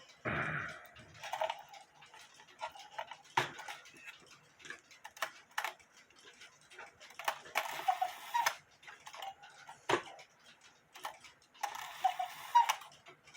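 HECO cuckoo clock's repaired bellows and pipes sounding two faint, breathy cuckoo calls about four seconds apart, activated by pulling the clock's string. Sharp clicks and knocks from the clock's mechanism come in between.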